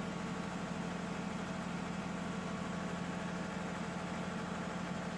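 Steady low machine drone with a fast, even pulse, like an engine idling. It does not come from the generator being started, whose engine is still stopped in pre-crank at 0 rpm.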